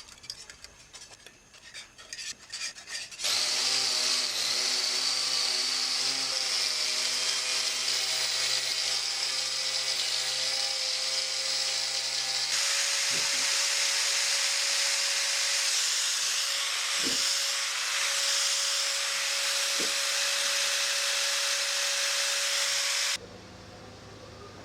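Handheld power tool running loud and steady under load after a few light handling clicks. It starts suddenly about three seconds in, its whine changes abruptly midway, and it stops suddenly near the end.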